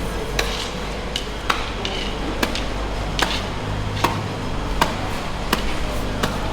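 Knife chopping on a cutting board in regular strokes, a little under one a second, over a steady low hum.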